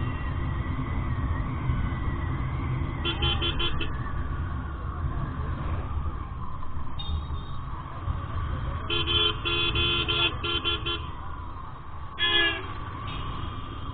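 Vehicle horns tooting in quick strings of short beeps, a burst about three seconds in, a longer run around nine to eleven seconds and a last one near twelve seconds, over the steady low rumble of a motorcycle ride in traffic.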